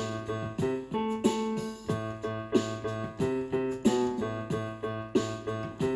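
Background music led by a piano-like keyboard with some plucked strings, notes struck in a steady rhythm.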